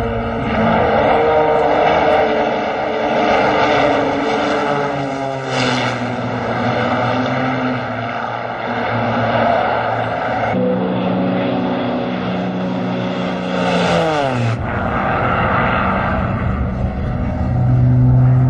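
Single-engine aerobatic propeller plane's engine running at high power, its note shifting up and down, with a steep falling pitch about fourteen seconds in as it sweeps past.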